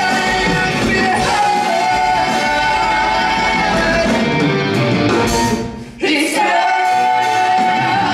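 Stage-musical cast singing long held notes in chorus over a rock band, heard from the audience in a theatre. The music dips briefly about six seconds in, then another held note follows.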